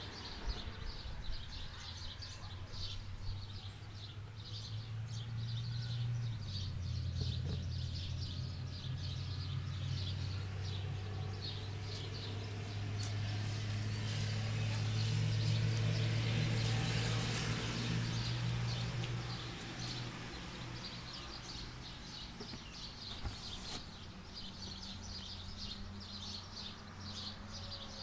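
Outdoor background of small birds chirping steadily, with a low engine hum that builds over the middle, peaks and fades away again.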